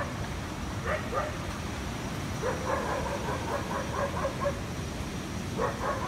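Steady low rush of a rain-swollen waterfall stream. Over it come runs of short, quickly repeated animal calls: a couple about a second in, a fast string of about ten in the middle, and another run near the end.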